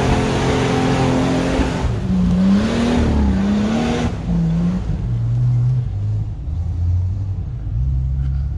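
A vehicle engine running and revving, its pitch rising and falling several times and easing off about four seconds in.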